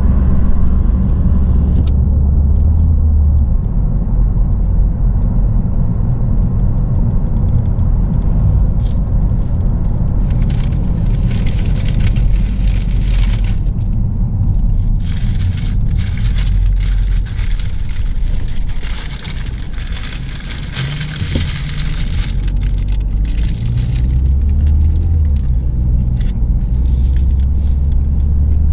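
Car driving along the road as heard from inside the cabin: a steady low rumble of engine and road noise, with a higher hiss rising over it for stretches through the middle.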